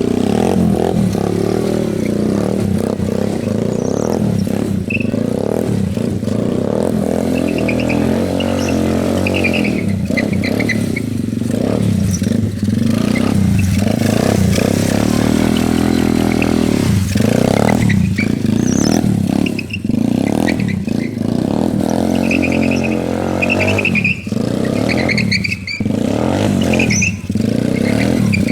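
ATV engine revving up and down over and over, as in drift and stunt riding, with short high chirps now and then.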